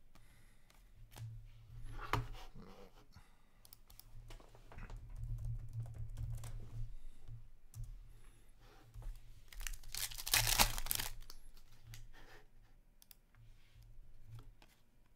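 Hockey trading cards being handled and stacked, with light clicks and rustles, and a card pack's wrapper torn open about ten seconds in, a loud crinkling tear that is the loudest sound.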